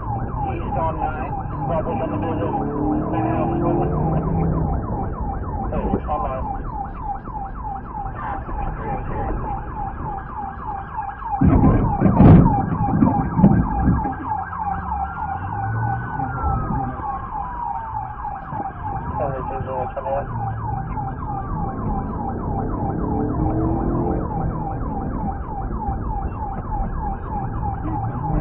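Police car siren in a fast, steady yelp, with a second siren's slower rising-and-falling wail joining about halfway through, over engine and road rumble. A loud thump stands out near the middle.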